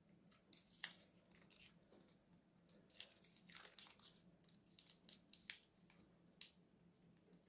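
Faint crinkling and scattered soft clicks from a plastic piping bag being squeezed as thick slime mixture is piped out into a glass bowl.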